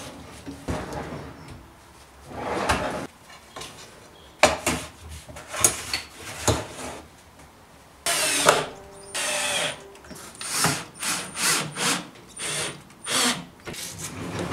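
A drill/driver driving screws in two short bursts, about eight and nine seconds in, with clicks and knocks of a drawer runner being handled and fitted before and after.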